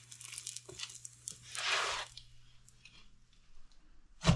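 Cooked oil roti being torn and crumpled by hand: soft crackling and tearing, a brief rustle about a second and a half in, and one sharp knock near the end.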